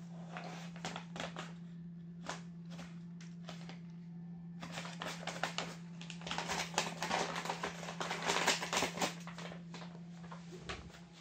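Paper bag crinkling and tearing as an American Curl cat scrabbles at it with its head inside: a few scattered crackles at first, then a dense, louder run of crackling about halfway through. A steady low hum runs underneath and stops near the end.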